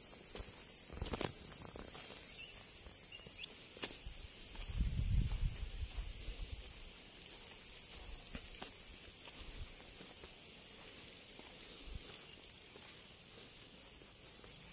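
Steady high-pitched drone of insects, with a brief low rumble about five seconds in and a few faint knocks.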